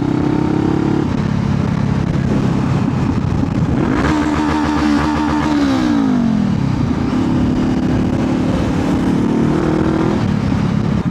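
Honda CBR500R's parallel-twin engine running under way, heard from the rider's helmet mic with road and wind noise. About four seconds in the engine note steps up and holds, then glides down in pitch at about six seconds before settling back to a steady cruise.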